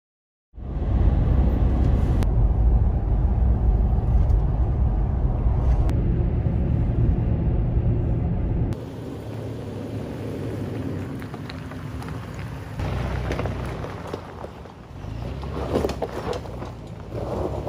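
Steady low road-and-wind rumble of a vehicle moving at speed, starting suddenly about half a second in. Near the middle it changes abruptly to a quieter scene: the 2020 Toyota 4Runner creeping up a rough gravel track, with tyres crunching and popping over stones.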